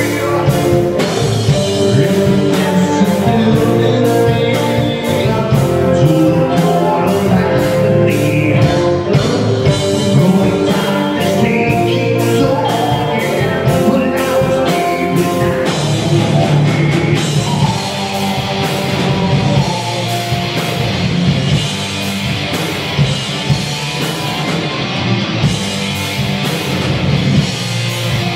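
Live rock band playing electric guitars, bass guitar and a drum kit, with a male lead vocal sung over it.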